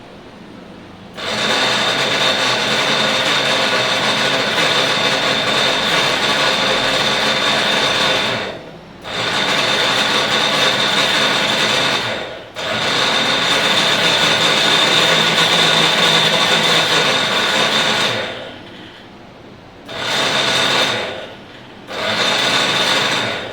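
Morphy Richards Icon DLX 750-watt mixer grinder running in three long bursts and then two short pulses, with a steady high whine over the motor noise. The jar's bush has just been oiled with coconut oil but is still noisy, which the owner takes for a damaged bush.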